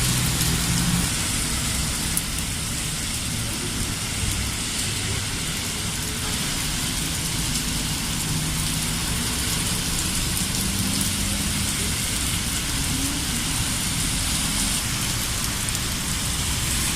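Heavy rain pouring down in a steady, even hiss, with a faint low hum underneath.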